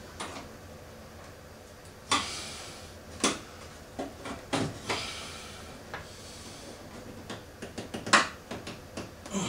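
A handful of sharp clicks and knocks, spread out with short gaps, as hand tools work against a Chevy Trailblazer's plastic headlight housing and its retaining tabs. The loudest come about two, three and eight seconds in.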